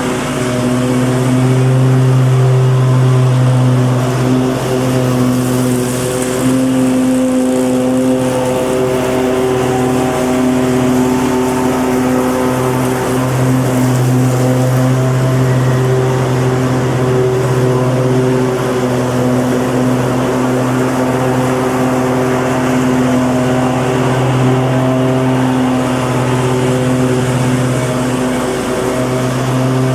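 Lawnmower engine running steadily at one constant speed, an even drone that does not rise or fall in pitch.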